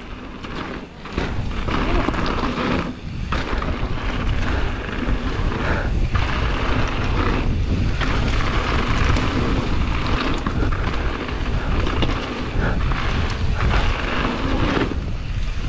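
Wind buffeting a mountain bike rider's action-camera microphone while the tyres roll and crunch over a loose gravel trail at speed, in a steady rushing noise with a deep rumble.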